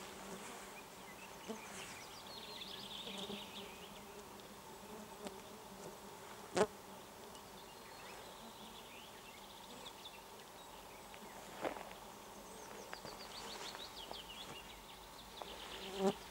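A swarm of midges buzzing around the microphone in a steady hum, with single insects passing close now and then. A few sharp knocks cut through, the loudest about six and a half seconds in. A bird sings a short falling series of notes twice in the background.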